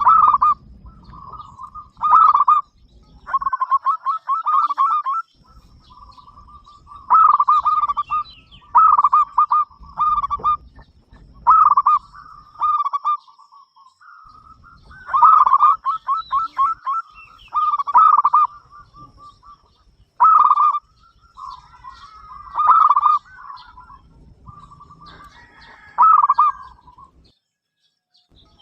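Zebra dove cooing: repeated phrases of rapid, rolling coo notes at much the same pitch, a new phrase every one to three seconds.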